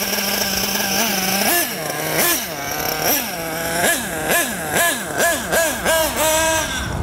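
Nitro RC buggy's small glow-fuel engine idling with a steady note, then revving up and down over and over, about twice a second, as the buggy drives off. It is running on a high-speed needle setting that the driver judges too rich.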